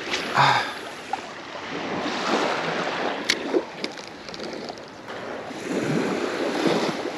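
Surf breaking and washing up the beach, swelling twice, with wind buffeting the microphone and a few sharp clicks about halfway through.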